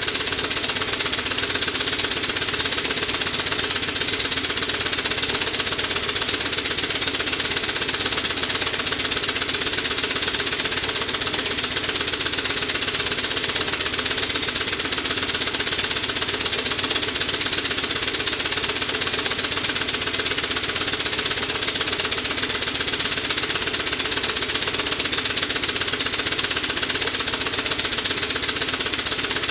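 Stuart 4A model steam engine running steadily under load, driving a generator: a fast, even beat of exhaust chuffs with steam hiss.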